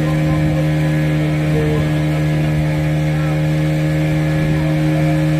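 Boat engine running steadily at constant revs, a continuous low drone with an unchanging pitch.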